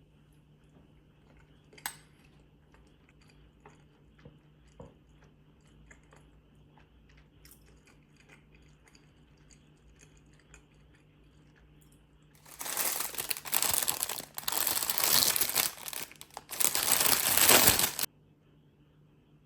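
Product packaging being handled: faint scattered clicks and taps, then loud crinkling and tearing of a wrapper for about five seconds, broken once by a short pause.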